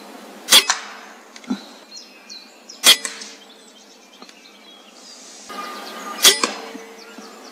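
Three separate shots from a PCP air rifle, each a sharp crack followed by a short ring and smaller knocks, the second about two and a half seconds after the first and the third about three and a half seconds after that.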